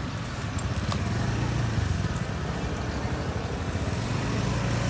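Street traffic: the low, steady hum of passing cars' and motorbikes' engines.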